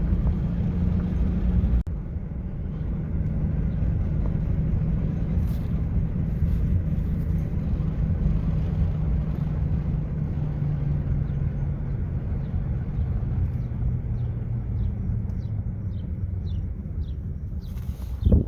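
Car driving along a road: a steady low engine and road hum that slowly eases off. Near the end comes a faint regular ticking, about two a second, then a short loud bump.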